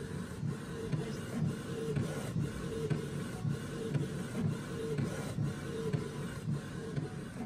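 Canon PIXMA G3420 inkjet printer printing its automatic print head alignment pattern: the print head carriage shuttles back and forth in a steady repeating rhythm as the sheet feeds out.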